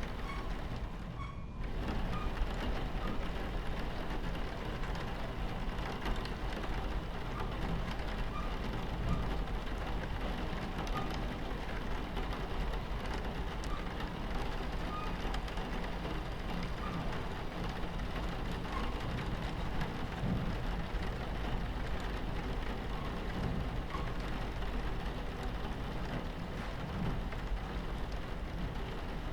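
Rain pattering against a train window over the steady low rumble of a train running on its tracks. The top end briefly dulls about a second in.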